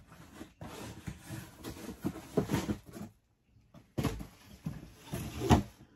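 Things being handled and shifted about, rustling with scattered knocks; a sharp knock about four seconds in and another, louder one near the end.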